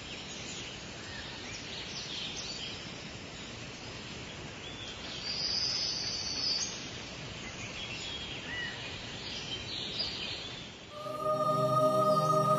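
Outdoor ambience of many small birds chirping and calling over a steady hiss. Near the end, music with sustained tones comes in.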